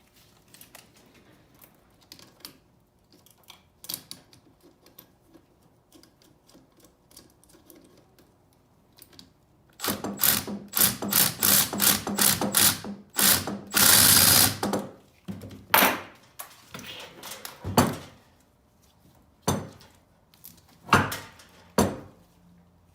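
Ratchet wrench turning a nut: faint scattered clicks at first, then a run of loud, quick ratcheting strokes about ten seconds in, followed by a few single clicks near the end.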